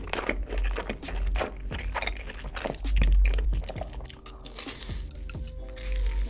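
Close-miked chewing and biting into chicken: a quick string of crisp crunches, over quiet background music, with a low rumble about three seconds in.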